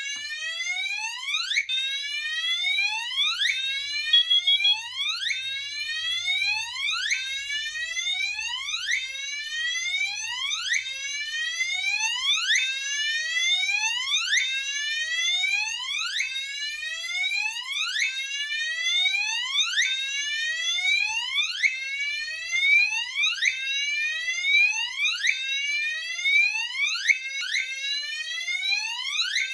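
Fire alarm system sounding a whoop signal for the activated carbon monoxide detector: a tone sweeping up in pitch, repeated about every 1.7 seconds. A short steady high beep sounds once about four seconds in.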